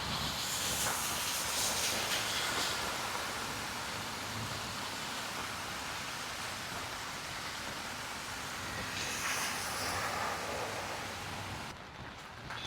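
Heavy rain falling, a steady hiss that swells louder near the start and again about nine seconds in.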